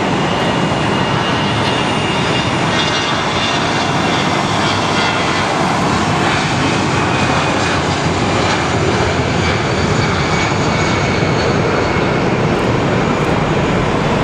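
Airbus A320 jet engines at take-off power: a loud, steady rush of noise with a faint high whine.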